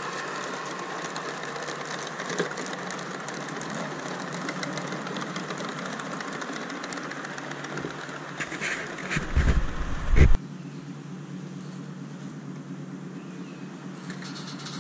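Sound unit of a 3D-printed Class 59 model diesel locomotive playing a steady diesel engine running sound through its small speaker. A few loud low thumps come about nine seconds in, then the sound cuts off suddenly and a quieter steady background follows.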